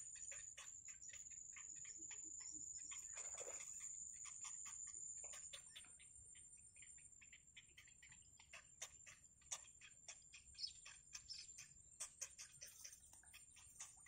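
Bittern nestlings begging at the nest, giving faint, irregular ticking calls over a steady high-pitched insect buzz; the ticks come thicker and sharper in the second half.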